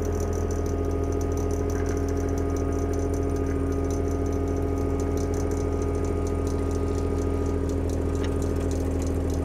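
An engine idling steadily: a constant, unchanging low drone that stops abruptly near the end.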